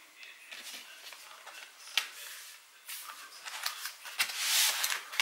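Plastic laptop screen parts being handled and pressed by hand: a sharp click about two seconds in among lighter ticks, then scraping and rubbing that grows louder near the end.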